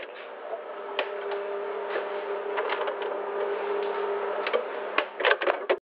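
A steady electrical hum with scattered clicks and knocks of things being handled. A quick cluster of knocks comes near the end, and the sound then cuts off suddenly.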